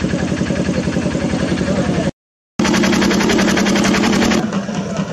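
Drums beaten in a fast, even rhythm, over the steady low ring of the drums and crowd noise. The sound breaks off for about half a second after two seconds, then resumes, and changes sharply just before the end.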